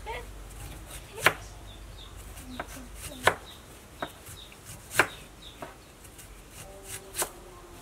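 Kitchen knife chopping vegetables onto a cutting board: single sharp knocks at irregular intervals, the loudest about every two seconds, with lighter taps between.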